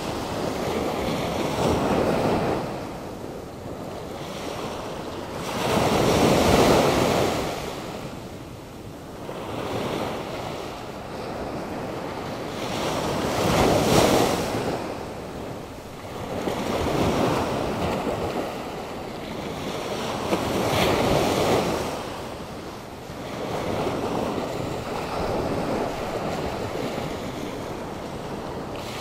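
Atlantic Ocean surf, stirred up by a passing hurricane, breaking and washing in: a steady rush with a loud surge every three to five seconds.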